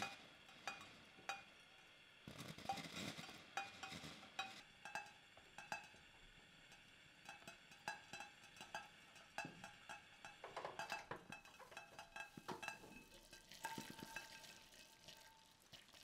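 A spatula stirring and scraping a thick, gelled cassava-starch mixture in a glass bowl, with many light taps and clinks against the glass that ring briefly. There are a few short stretches of hiss.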